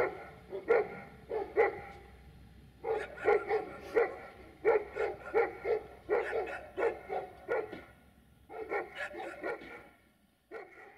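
A dog barking repeatedly in quick runs of barks with short pauses between them, the barking dying away near the end.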